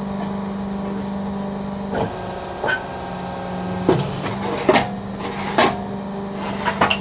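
Electric motor of a fly ash brick machine's hydraulic unit running with a steady hum. From about two seconds in, half a dozen sharp knocks come from the machine as it is worked by hand.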